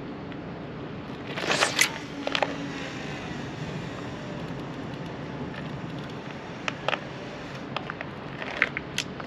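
Steady wind and sea noise, with a cluster of sharp clicks and scrapes about two seconds in and a few single ticks near the end as a sea-fishing rod and reel are handled.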